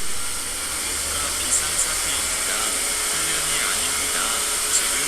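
Steady, loud hissing noise with a few faint, brief glides in the background.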